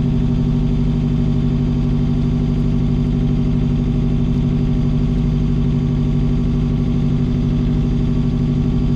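Hire cruiser's inboard engine running steadily at low revs, heard from on board.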